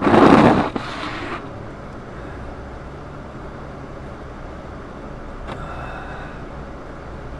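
Car driving on snowy roads, heard from inside the cabin: steady engine and road rumble. A loud burst of noise in the first second or so, then a faint click past the middle.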